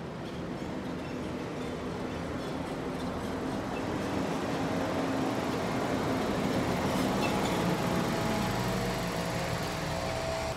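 A small cab-over rear-loader garbage truck driving past with its engine running. It grows louder to a peak late on, and its engine pitch falls as it goes by.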